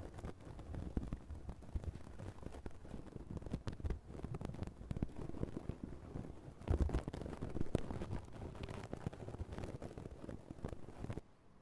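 Close, crackly rustling and scratching right at the ear, with many small clicks, from ear-cleaning (采耳) work near the microphone. It cuts off suddenly near the end.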